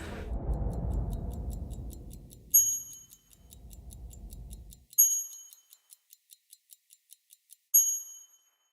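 A timepiece ticking evenly, about four ticks a second, with a short bright chime three times, about two and a half seconds apart. A low rumble underneath fades out about halfway through.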